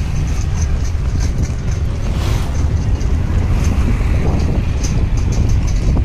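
Wind buffeting the microphone of a phone riding on a moving horse-drawn cart: a loud, steady low rumble, with faint scattered ticks above it.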